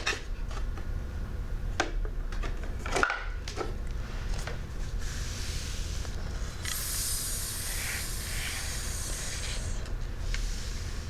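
A fingertip rubbing over a sandpaper letter makes a dry, scratchy hiss that lasts about three seconds near the middle, with a shorter rub just before it. Before that come a few light knocks and clicks as the letter boards are handled.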